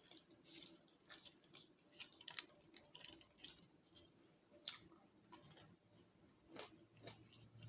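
Quiet chewing and mouth sounds of a person eating a fast-food sandwich and fries: short soft smacks and clicks every second or so, the sharpest a little past the middle.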